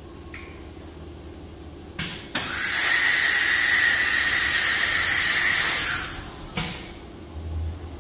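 Compressed air hissing loudly at the automatic tool change spindle of a CNC router during a tool change. It starts with two short pneumatic bursts about two seconds in, runs steadily for about four seconds, and cuts off with a last short burst.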